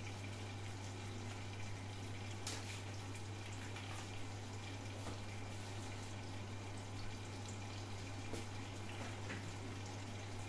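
Mussels cooking in a frying pan on the stove: a faint steady bubbling hiss with an occasional light tick, over a steady low hum.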